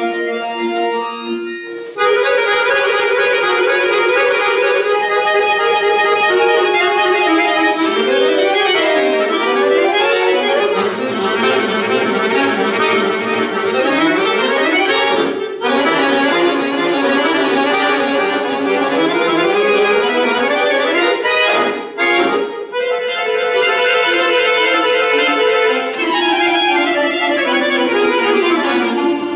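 Bayan (chromatic button accordion) playing solo. A softer held chord gives way, about two seconds in, to a loud passage of fast runs rising and falling across the keyboard, broken by two short pauses midway.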